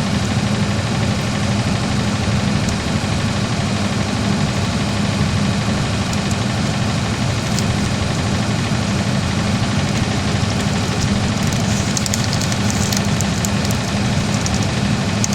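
An engine running steadily at constant speed with a low, even hum. Light crackling ticks come in near the end.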